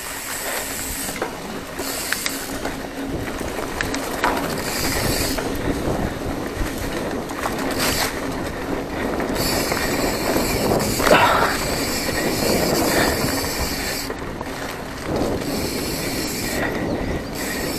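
Mountain bike riding fast over a rough dirt and grass trail: the frame, chain and components rattle over the bumps and the tyres rumble on the ground, with a few harder jolts.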